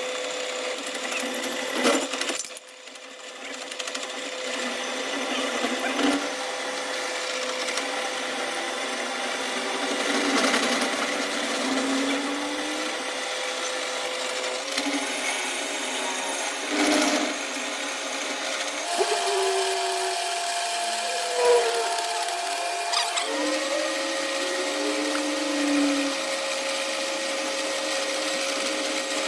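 A machine tool running steadily with a whining tone over a noisy grinding sound; the pitch shifts for a few seconds past the middle, and a few short knocks break in.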